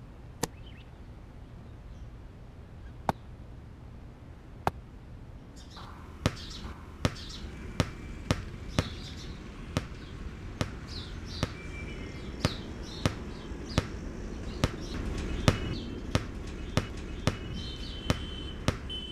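A ball bouncing on a hard floor, a few separate knocks at first, then regular bounces at a little over one a second from about six seconds in. Birds chirp faintly behind.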